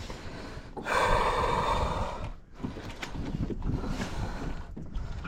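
A person breathing out heavily: one long breath lasting about a second and a half, starting about a second in, with wind rumbling on the microphone.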